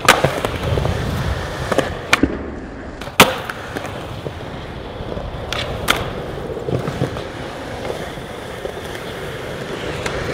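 Skateboard rolling on a smooth concrete floor, its wheels giving a steady rolling rumble, broken several times by the sharp snap of tail pops and the slap of the board landing during flatground tricks.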